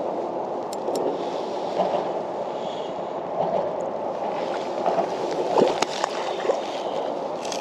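Water lapping and sloshing against the hull of a Hobie Lynx kayak, with a hooked small mulloway splashing at the surface beside the kayak a little past halfway through.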